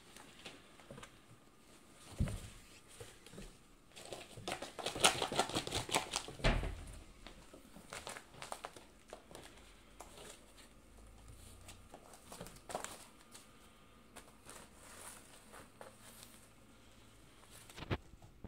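Cats playing with a cardboard box: scattered scratching and rustling of the cardboard, with a dense flurry of scratching about four to seven seconds in and a couple of soft thumps.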